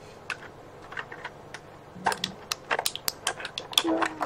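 Small hard-plastic clicks and taps as an SDX figure's loose parts are picked out of its clear plastic packaging tray. A few scattered clicks come first, then a quicker run of sharp ones in the second half.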